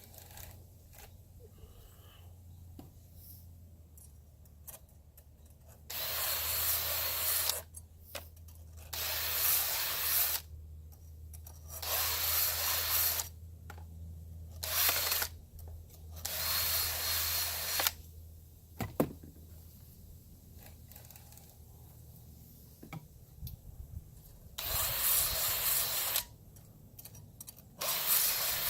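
Chainsaw chain teeth being ground with a small powered sharpening tool: a steady low motor hum, broken by about seven loud grinding passes of a second or two each, a few seconds apart, with a longer pause in the middle.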